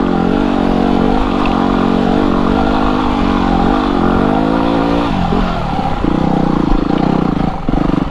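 Yamaha WR250R's single-cylinder four-stroke engine pulling steadily on a dirt trail. About five seconds in the rider eases off the throttle and the pitch falls to a low, chugging putter in which the separate firing pulses can be heard.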